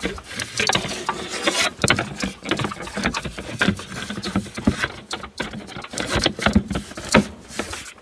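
Irregular clicks, taps and scrapes of hands handling plastic dashboard parts while fitting a small tweeter speaker into its mount.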